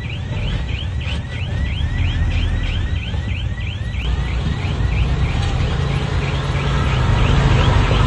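Komatsu bulldozer's diesel engine running with a steady low rumble, growing a little louder near the end. Over it comes a rapid string of high chirps that slide in pitch, about four a second, fading out after about six seconds.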